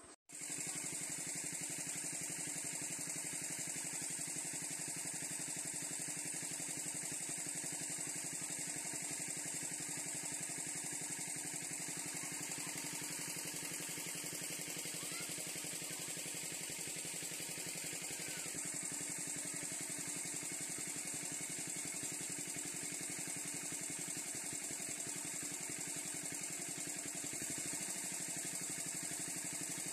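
Small engine-driven water pump running steadily, pumping the pond dry through its hose. It cuts in abruptly just after the start and holds an even, unchanging beat.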